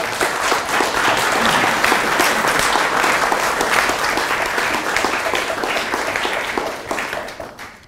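Audience applauding in a seminar room, a steady patter of many hands clapping that fades away over the last second or so.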